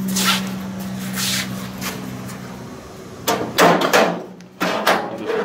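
Thin sheet-metal outer cover of a microwave oven being slid back and lifted off the chassis: scraping near the start, then loud rattling and clattering of the metal panel about three and a half seconds in, with a steady low hum underneath.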